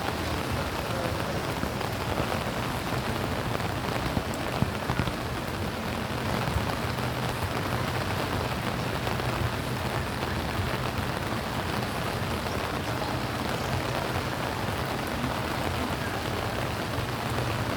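Steady rain falling and pattering on surfaces, with a few louder drops ticking about four to five seconds in.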